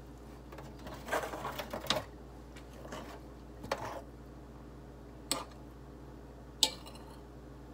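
Someone eating: chewing sounds, then a few sharp clicks of a metal fork against a plate, the clearest two in the second half.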